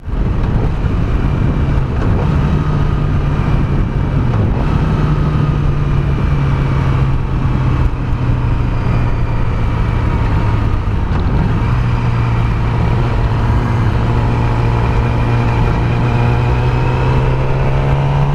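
Yamaha R6 sport bike's inline-four engine running at steady cruising revs, its note shifting only slightly, under a constant rush of wind and road noise.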